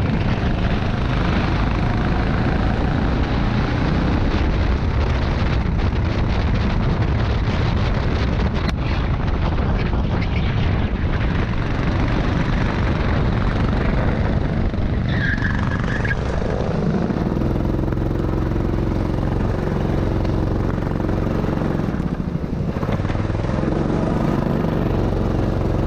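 Rental go-kart's small engine running hard, heard from the kart itself, with a dense rush of noise over it. About sixteen seconds in the kart eases off and the engine settles into a slower, steadier note with a clear pitch.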